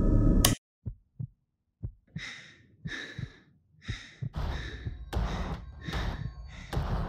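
A wall light switch clicks off and the music cuts out with it. After a few soft thumps, a person breathes heavily and fast, about one breath every two-thirds of a second, over low thuds.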